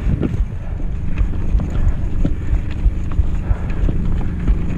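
Mountain bike ridden over bumpy grass onto a gravel track: a steady low rumble of tyres and wind on the microphone, with frequent irregular knocks and rattles as the bike jolts over the rough ground.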